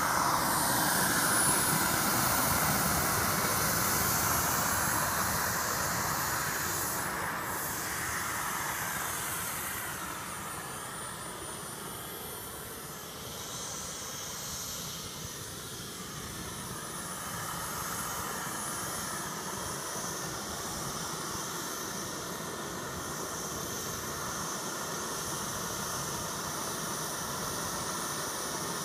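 JetCat P-160 model jet turbine in a Boomerang Taurus RC jet running as the model taxis: a steady high whine over a hiss of exhaust. It is loudest near the start, fades as the jet moves off down the runway, and grows a little as it comes back.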